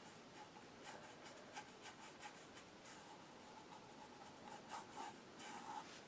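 Faint, scratchy strokes of a paintbrush working acrylic paint onto a stretched canvas, coming quickly several times a second.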